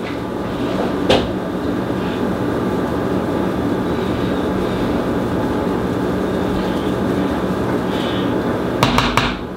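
A steady mechanical rumble with a low hum running under everything, and a few short clicks about a second in and near the end.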